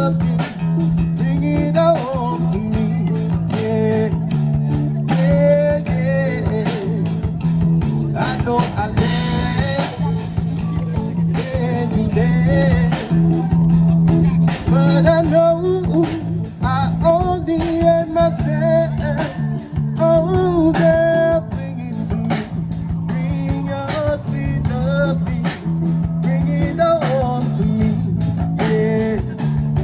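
Music: a song with a singing voice over guitar and a steady bass line.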